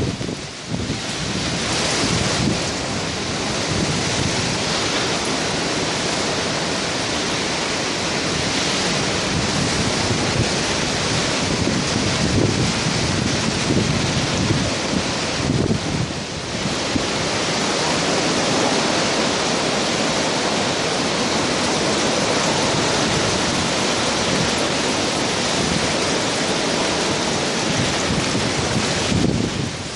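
Typhoon-force wind blowing hard and steadily, buffeting the microphone, easing briefly about a second in and again around sixteen seconds.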